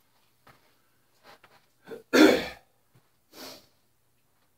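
A man coughing close to the microphone: one loud cough about two seconds in and a softer one about a second later, with a few faint taps before.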